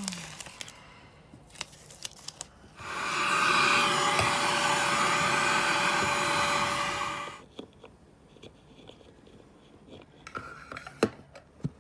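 Small vacuum cleaner runs steadily for about four and a half seconds, starting about three seconds in, clearing dust from the freshly cut countertop hole. A few light clicks and taps from handling parts follow near the end.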